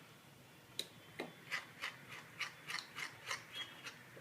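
Spatula scraping and tapping against its container while folding dry ingredients into cake batter, in a steady rhythm of about three strokes a second.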